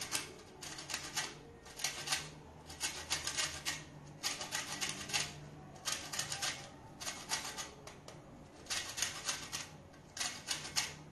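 An orange rubbed against a metal box grater to take off its zest: quick rasping scrapes in runs of several strokes, roughly one run a second, with a couple of short pauses.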